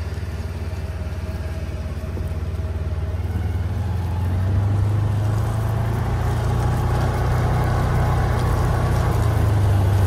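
Tractor engine running steadily under load while pulling a mole drainer through the soil, growing louder from about halfway through.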